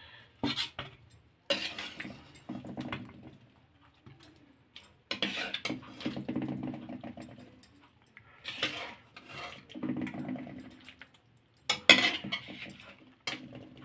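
Steel ladle scraping and clinking against a steel kadai as curry is scooped out and served onto a steel plate, in irregular bursts with a sharp metal clink near the end.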